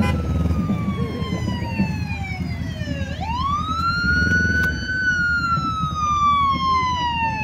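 Emergency vehicle siren wailing: its pitch falls slowly to a low point about three seconds in, sweeps quickly back up, and falls slowly again, over a low background rumble.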